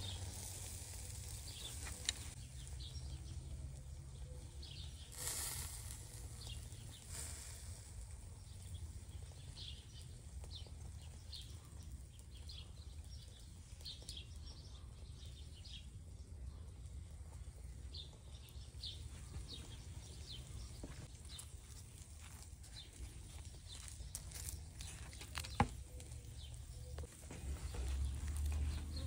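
Quiet outdoor background: a low steady rumble with faint, scattered bird chirps, and a sharp click about two seconds in and another near the end.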